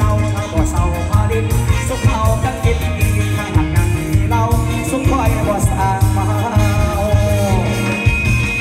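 Live Isan mor lam band music over a PA system, with a strong steady bass and drum beat and a singer whose voice slides in pitch in the second half.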